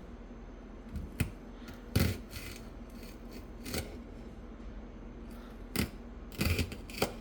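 Steak knife chopping through celery stalks onto a cutting board: about seven short, crisp cuts at uneven intervals, each a quick crunch of the celery fibres ending in a tap on the board.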